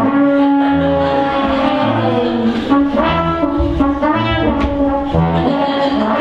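Music led by brass instruments, with held and moving notes over a bass line that changes about once a second.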